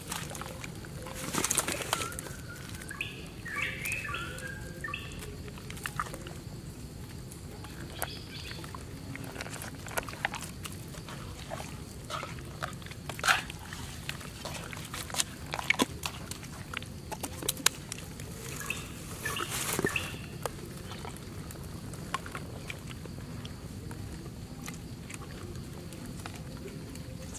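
Bare hands squishing and rubbing large raw fish roe sacs in a metal pan, with wet squelches and scattered sharp clicks, over birds chirping in the background.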